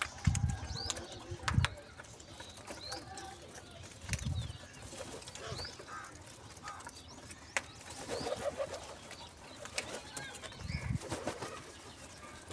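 Birds at a feeding spot: scattered short high chirps and calls, with a few low thumps, about four, spread through it.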